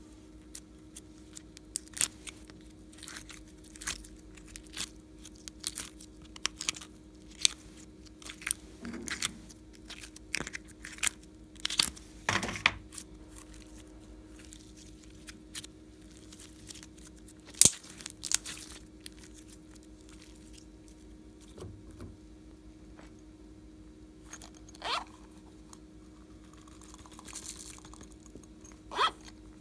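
Glossy slime being squeezed and stretched by hand, giving sticky clicks and crackles in quick runs through the first twenty seconds, then only a few separate clicks. Plastic slime containers are handled as well.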